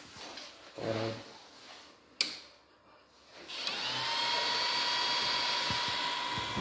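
A sharp click, then the Murata D1U-W-2000-48 power supply's twin cooling fans spin up about three and a half seconds in, rising briefly in pitch and settling into a steady whir with a high whine as the unit powers on.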